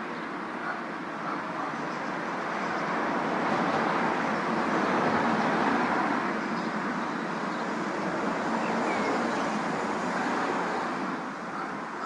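Open-air city ambience: a steady rushing noise of distant traffic and wind. It swells a few seconds in and eases off near the end.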